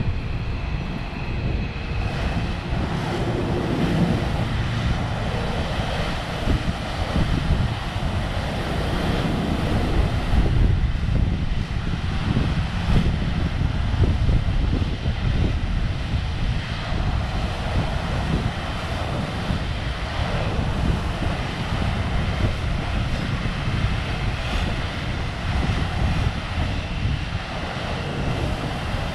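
Keikyu electric train passing slowly through a depot's automatic train washer: a steady rushing of water spray and rotating brushes over a low rumble.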